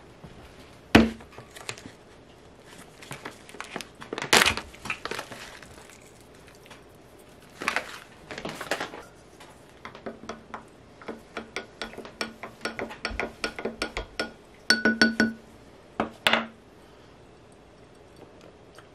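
A metal spoon stirring in a glass mason jar of water, clinking against the glass in a quick run of light, ringing clinks about four a second, loudest near the end of the run. Earlier come a few knocks on the wooden table and the crinkling of a foil packet.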